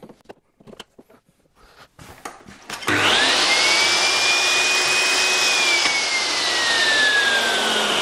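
A DeWalt sliding mitre saw and the dust extractor hosed to it start up together about three seconds in, as a trial run of the saw hooked up to extraction. A steady rush of suction with a motor whine that rises quickly, holds, then sinks slowly as the saw winds down.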